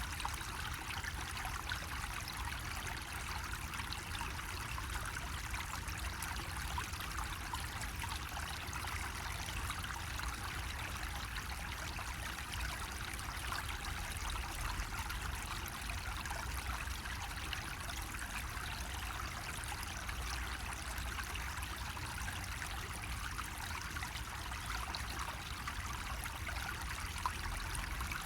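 Water flowing steadily from a bamboo spout: a continuous, even trickle and splash with a low rumble beneath it.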